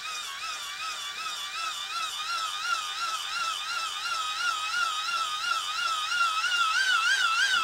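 Hand-crank charger's dynamo being cranked: a whining whir that wavers in pitch with each turn of the crank, about three times a second, rising in pitch and getting louder as the cranking speeds up.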